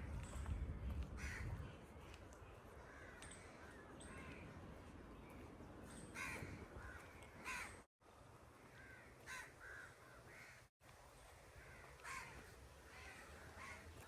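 Crows cawing faintly: many short, harsh calls, singly and in quick runs. The sound cuts out briefly twice.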